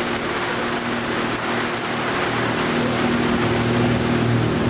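Motorboat engine running steadily at towing speed, a constant low hum under the rush of water and wash churning behind the boat.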